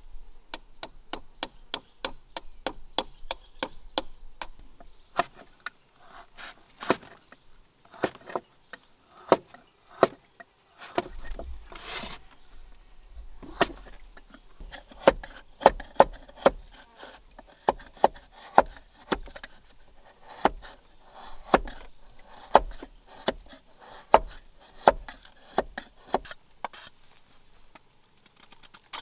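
A knife chopping and carving bamboo: a steady run of sharp wooden knocks, a few a second, louder in the second half.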